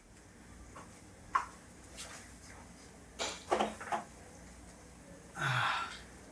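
Quiet room tone with a few soft clicks and knocks, and a short rushing noise a little after five seconds in.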